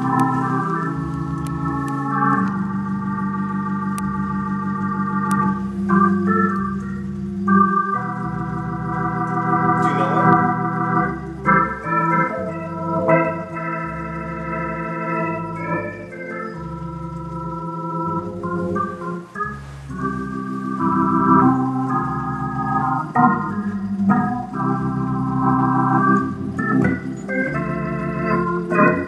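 Hammond home organ playing a slow tune: a melody over held chords, with a low bass note about once a second.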